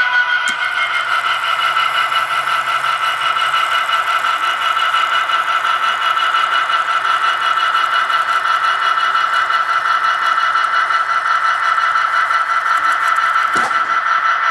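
HO-scale model turntable's electric drive whining steadily as the bridge turns a locomotive. A sharp click comes about half a second in and another near the end.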